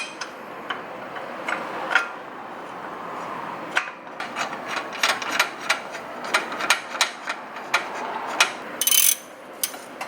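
Hand ratchet wrench clicking as the stock bolts are run in to fasten a brake caliper mounting bracket, a quick run of clicks in the second half. A short rasp comes near the end.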